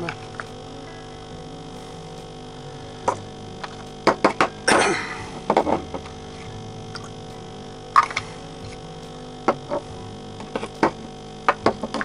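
Hard plastic parts of a Wacaco Nanopresso handheld espresso maker being handled and taken apart: scattered clicks and knocks, with a brief rush of noise about five seconds in, over a steady hum.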